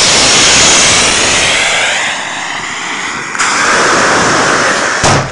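Firework motors burning with a loud, continuous rushing hiss as they drive a pumpkin rig on a skateboard. About three and a half seconds in the hiss steps up louder, and a sharp bang comes near the end.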